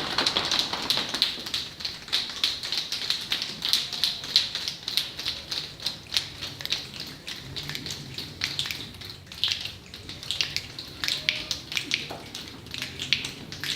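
A class of children imitating rain with body percussion: a dense patter of many scattered hand snaps and taps that grows sparser over the second half, like rain easing off.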